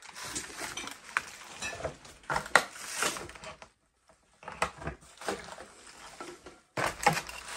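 Footsteps through trash strewn over a floor: irregular crunching, clattering and crackling of litter underfoot, with bottles and cans knocking.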